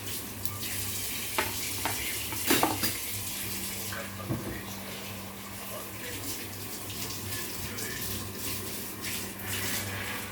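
Tap water running steadily into a kitchen sink, with a few clinks and knocks of dishes or utensils in the first half.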